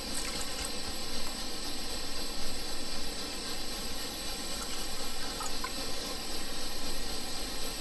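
Liquid-fuel (white gas) backpacking stove burning with a steady hiss. For the first few seconds, water is poured from a bottle into a cooking pot.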